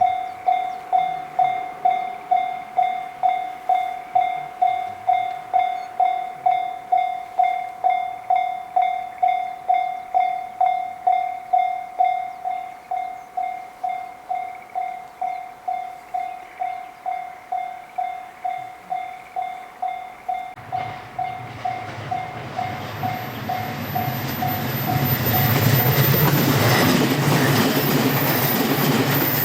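Japanese level-crossing warning bell ringing in a steady kan-kan about twice a second, growing quieter over the second half and stopping about 25 seconds in. From about 21 seconds a JR Narita Line train comes through the crossing, its wheels on the rails building to a loud, steady noise that lasts to the end.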